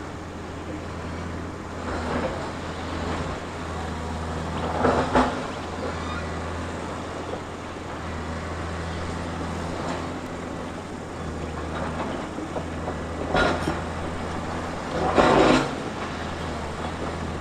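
Bulldozer's diesel engine running steadily under work, with four louder rough rushes of noise over it, the loudest about three-quarters of the way through.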